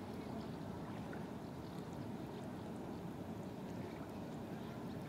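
Steady low rushing of river water moving, with a few faint high ticks scattered through it.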